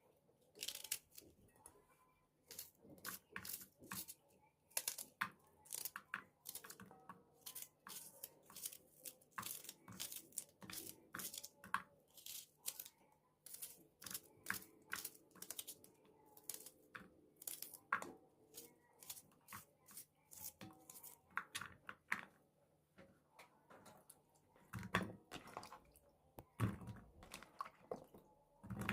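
Food being prepared by hand: a long, irregular run of crisp crunching and snapping clicks, a few a second, with a few dull low thumps near the end.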